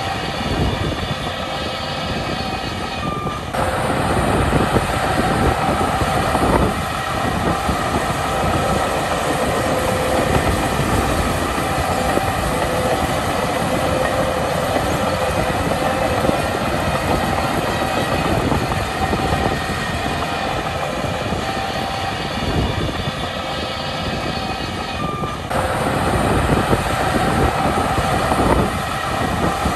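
Shantui crawler bulldozer at work: its diesel engine running under load with the steel tracks clattering and squealing in a steady mechanical din. The sound shifts abruptly twice, about three and a half seconds in and again a few seconds before the end.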